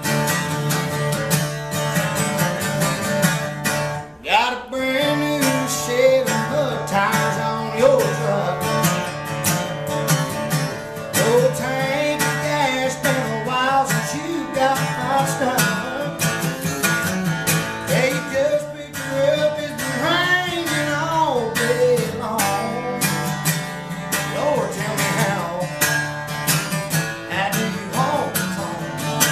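Acoustic guitar strummed with a man singing a country song over it. The guitar plays alone at first; after a short break about four seconds in, the voice comes in and carries on over the strumming.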